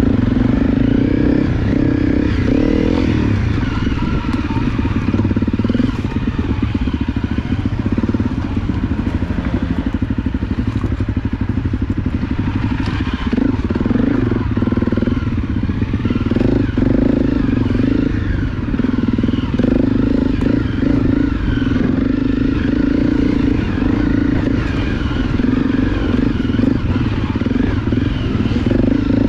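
Honda CRF250 dirt bike's single-cylinder four-stroke engine running steadily while riding a rough woodland trail, with occasional knocks and clatter from the bike over the ground.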